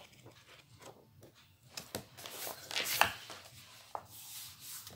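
Paper pages of a colouring book being turned and a hand rubbing over the paper to flatten the book open, with a sharper paper rustle about three seconds in.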